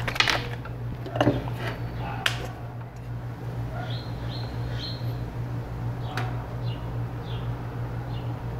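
Plastic airbrush paint bottle being handled and opened over an airbrush, giving a few sharp clicks and taps, over a steady low hum. From about halfway, a series of short high chirps and squeaks comes and goes.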